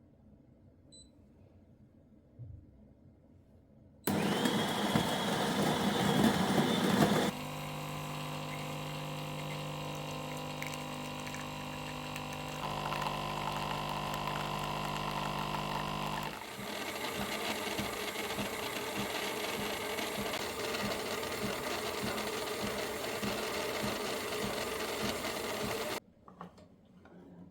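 A small electric motor running in three stages: loud at first for about three seconds, then a steadier pitched hum, then a rougher, noisier run that stops suddenly near the end.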